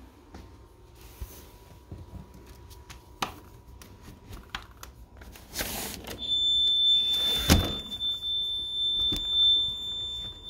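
A window being slid open with two brief scraping rushes, and about six seconds in a Honeywell alarm system starts sounding one steady, unbroken high-pitched tone: the burglary alarm set off by opening the armed window zone.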